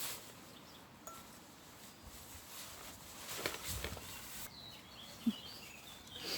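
Faint birdsong, a few short high chirps in the second half, over quiet woodland background, with a soft muffled thump about three and a half seconds in.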